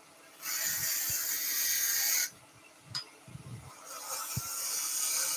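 Thin parting tool cutting into tulipwood spinning on a wood lathe: two cuts of scraping hiss about two seconds each, the first starting about half a second in and the second near the end.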